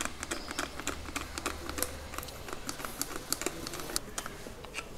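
Gear oil being filled into a scooter gearbox through its filler hole: quick, irregular, light clicks and ticks, several a second.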